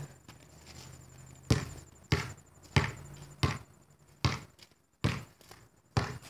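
Basketball bounced repeatedly on the ground, about seven sharp bounces roughly one every 0.7 s, the first about a second and a half in.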